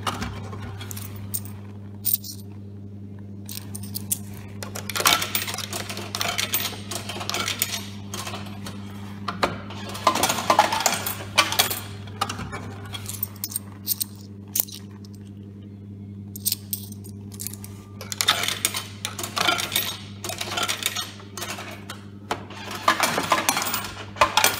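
Coins clinking and rattling down into a vending machine's coin-return cup as its coin-return button is pressed, in bursts every few seconds, over a steady low hum.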